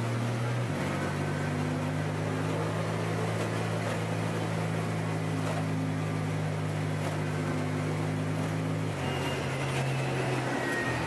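Engine and road noise inside a moving vehicle's cab, a steady drone whose engine note steps up about a second in and drops back near the end.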